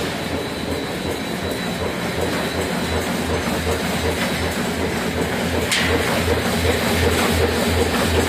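PY-950 roll-fed paper-plate die-cutting machine running: a steady mechanical clatter with an even pulse of about three strokes a second, a faint high steady whine, and one sharp click a little past the middle.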